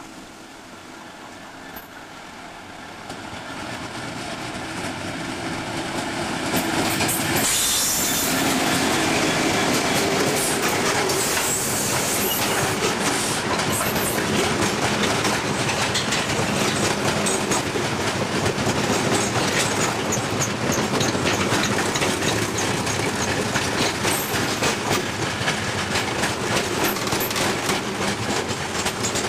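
Class 66 diesel-electric locomotive, with its two-stroke V12 engine, approaching and passing close by at speed with a train of loaded container wagons. The sound builds over the first several seconds and peaks about seven seconds in. After that comes a steady clatter from the wagons' wheels clicking over the rail joints.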